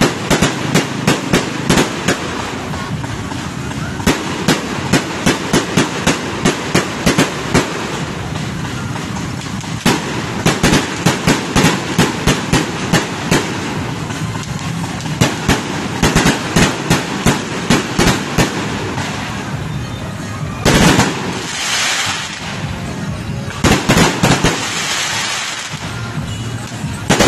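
Fireworks display: runs of sharp bangs from aerial fireworks bursting, about four a second, with short pauses between runs. Near the end the bangs give way to a few longer rushing bursts.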